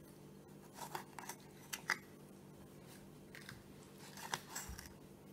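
Small kitchen knife slicing through ripe tomatoes and knocking against a bamboo cutting board: a handful of faint cuts and taps.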